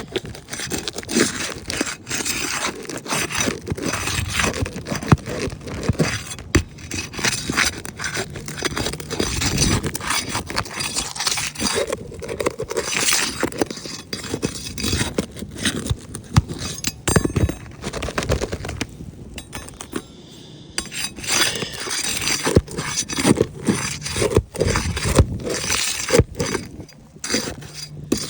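Asphalt roof shingles being worked loose: repeated scraping and crackling of the gritty shingle surface, with sharp clicks mixed in and a short lull about two-thirds of the way through.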